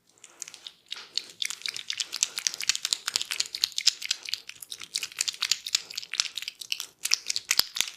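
A barber's hands rubbing and scratching close to the microphone during a massage, making a dense, fast crackle.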